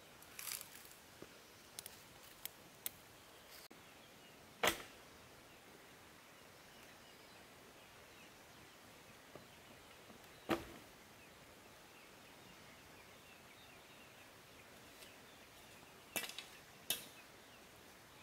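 A few separate sharp knocks, each very short: the loudest about four and a half and ten and a half seconds in, two more close together near the end, and lighter taps early on, over a faint steady background hiss.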